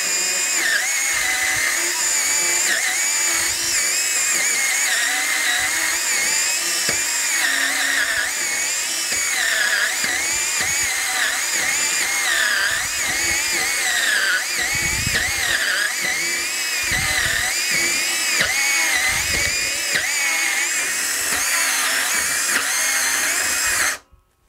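Bosch EasyCut 12 cordless Nanoblade saw cutting through a 65 mm oak block, its motor and chain whining steadily with a pitch that keeps dipping and recovering as the blade is levered through the hardwood under load. The saw is working at its limit in the cut, and stops abruptly near the end.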